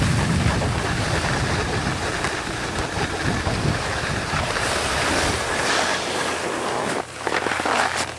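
Wind buffeting the microphone and skis hissing over packed snow while skiing downhill. About seven seconds in the deep rumble drops away, and a second of rougher scraping follows as the skis slow.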